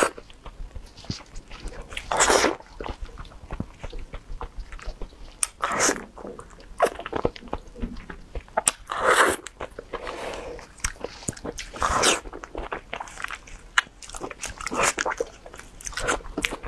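Close-miked eating sounds of someone chewing soft durian flesh: steady small wet clicks and smacks of the mouth, with a louder mouthful about every three seconds.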